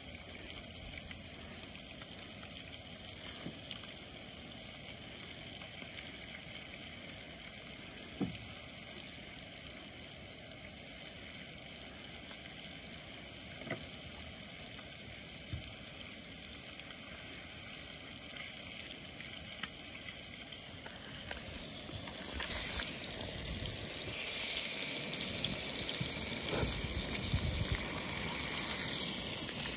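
Brook trout fillets frying in butter in a small pan on a Jetboil canister stove, a steady sizzle that grows louder about two-thirds of the way through, with a few light clicks.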